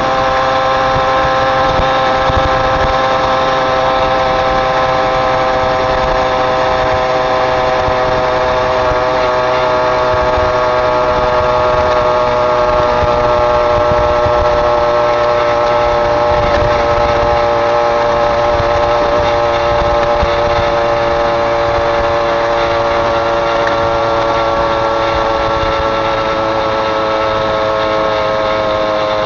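Small moped engine running steadily under way, its pitch easing slightly lower near the end.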